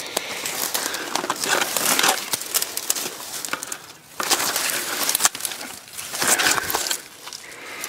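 Dry bean stalks and brush crunching and rustling as someone pushes through them on foot, in three stretches with short pauses between.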